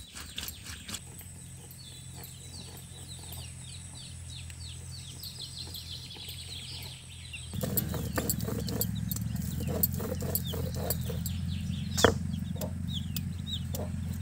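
Chickens clucking and chicks peeping in short falling chirps, over the scrape and knock of a stone roller grinding spices on a flat grinding stone. About halfway through, the sound turns louder, with a steady low rumble, and there is one sharp knock near the end.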